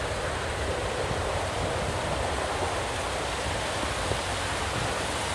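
Steady wind rushing over the microphone: a continuous even hiss with low buffeting.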